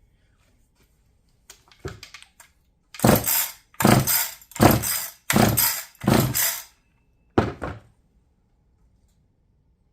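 Pull-starter rope on a 1973 Frontier Mark 1 two-stroke chainsaw yanked about five times in quick succession, then once more, cranking the engine over with the spark plug out for a compression test. The test shows compression of around 130 to 132 psi.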